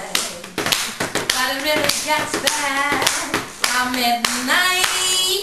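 Body percussion: hand claps and slaps on the legs, several sharp strikes a second, keeping a rhythm for a jam.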